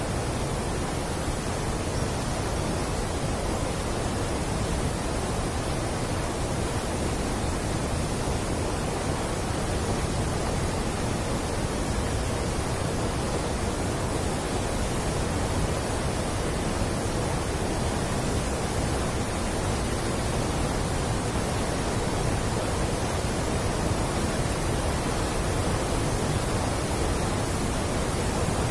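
Steady, unbroken rush of turbulent water pouring out through a partly opened steel sluice gate of a river barrage and churning in the channel below.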